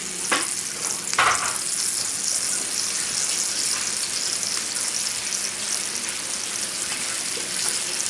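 Floured chicken pieces sizzling as they brown in hot olive oil in a pan over a high gas flame: a steady frying hiss, with two brief louder crackles just after the start and about a second in.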